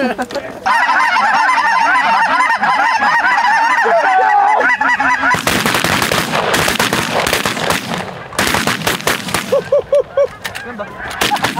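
A large flock of lesser Canada geese honking and calling overhead, many birds at once. About five seconds in, a volley of several shotgun shots breaks out, with more goose calls after it.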